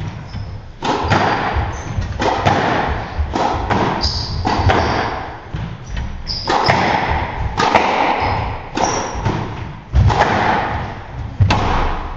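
Squash rally: the ball thuds off the walls and is struck by the rackets in a quick run of sharp impacts, with short high squeaks of shoes on the wooden court floor in between.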